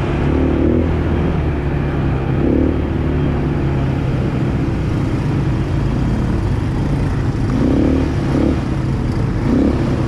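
Automatic ATV engine running steadily while riding.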